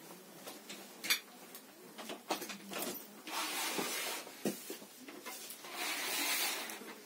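Scattered light clicks and knocks, with two stretches of soft hissing noise about three and six seconds in: handling noise around the opened plastic base of a table fan and its wiring, with the fan not yet running.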